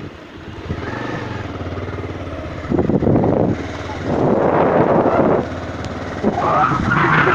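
Motorcycle engine running steadily while riding, overtaken from about three seconds in by loud gusts of wind buffeting the microphone that come and go.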